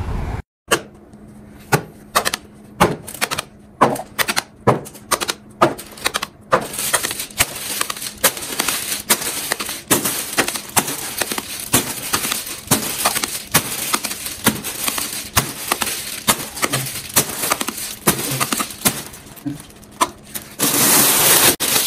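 Irregular sharp taps and clicks, about one or two a second, over a faint steady hum, with a denser burst of rustling noise near the end.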